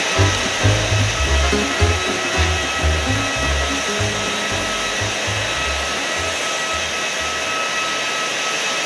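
Steady rushing noise of jet aircraft on an airport apron, with several high whining tones held throughout. Background music with low bass notes plays under it and drops away about six seconds in.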